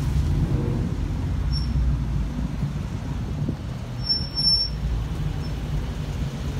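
Low, steady rumble of car engines idling and rolling at walking pace as cars pull into a parking lot.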